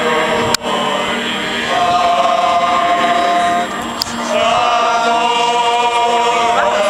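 A group of voices singing together in long held notes. The sound breaks off sharply for a moment about half a second in.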